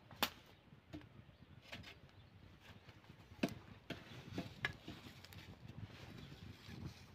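Small wood fire under an iron griddle crackling faintly, with scattered sharp pops every second or so.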